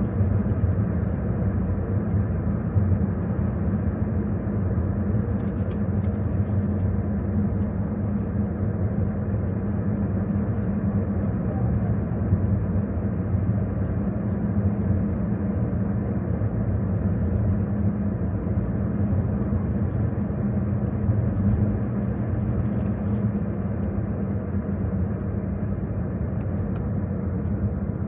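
Car being driven at a steady pace: engine and road noise heard from inside the cabin as a steady low rumble.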